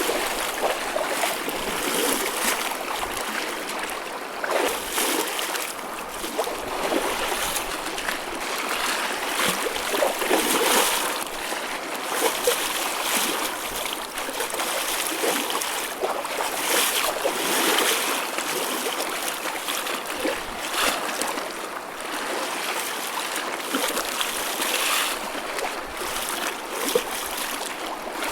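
Choppy ocean waves breaking and washing, a continuous churning splash that swells every few seconds, with small sharp splashes throughout.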